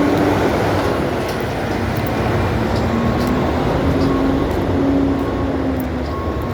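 Asphalt milling machine at work: a loud, steady rumble of diesel engine and cutting drum, with a wavering engine tone and scattered sharp clicks.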